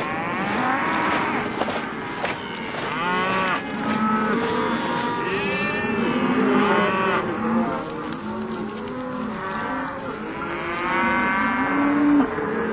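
A herd of cattle mooing, many calls overlapping one another throughout.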